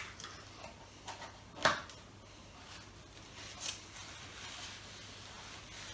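Light handling noise of a paper soda cup with a straw at the table: a few soft clicks and knocks, the loudest about two seconds in, another near four seconds.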